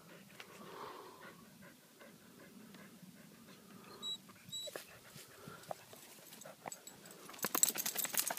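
A wet dog panting while it rolls and rubs itself in dry grass, with the rustle of the grass under it. Near the end comes a louder burst of rapid crackling rustle as it scrambles up.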